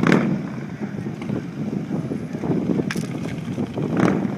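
Pickup truck towing a parade float passing at walking pace, its engine and tyres a low steady rumble, with wind buffeting the microphone and a few knocks from handling, the clearest at the start and about three and four seconds in.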